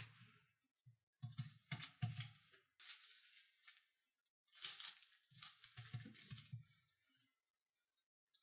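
Faint bouts of crinkling and scraping handling noise with soft thuds, starting and stopping several times.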